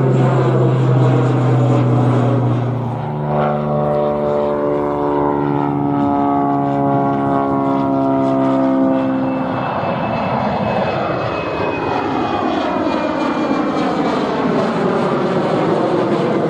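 Propeller aircraft passing low overhead: a loud drone of several steady tones that shifts about three seconds in, then from about ten seconds in a set of tones falling slowly in pitch as it goes by.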